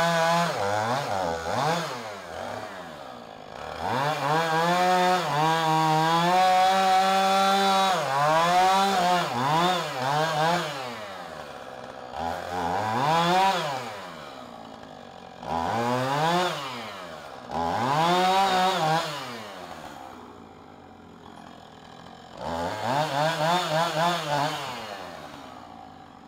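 Two-stroke chainsaw cutting through a tree limb. It runs at full throttle in one long cut about four to eight seconds in, then gives a series of short revs that drop back to idle between them.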